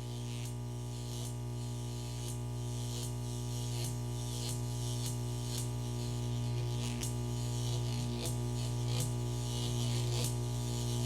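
Added sound effect of high-voltage electricity: a steady electrical buzz with sharp crackles and zaps every half second or so, slowly growing louder.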